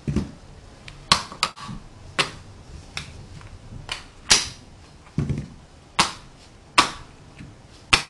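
Tegu magnetic hardwood blocks clacking as they snap onto other blocks one at a time: about ten sharp clicks at uneven intervals, two of them with a duller knock.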